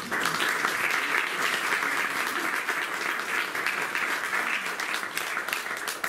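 Audience applauding, starting all at once and beginning to die down near the end.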